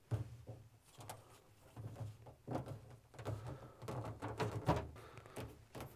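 Faint handling noises: irregular soft taps, knocks and rubbing as fingers press a self-adhesive LED strip onto the metal profile rails of a frame.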